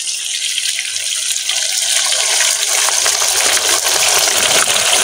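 Bananas frying in a pan of hot oil: a steady sizzle with small crackling pops, getting louder over the first two seconds.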